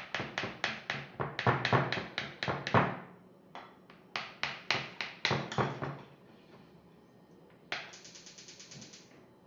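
Metal cake server clicking against a glass baking dish as a lasagna is cut, a quick even run of sharp clicks at about five a second in two spells. A faster rattle follows near the end.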